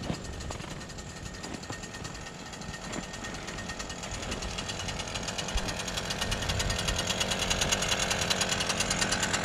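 A motor running steadily with a fast, even rattle, growing louder over the second half.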